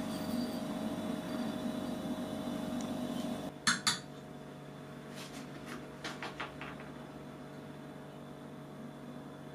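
Steel tube carrying an abrasive grinding wheel set down on the steel rods of a static balancing stand: two sharp metallic clinks about three and a half seconds in, then several lighter clicks as the wheel rolls and settles to find its heavy side. A low steady hum stops just before the clinks.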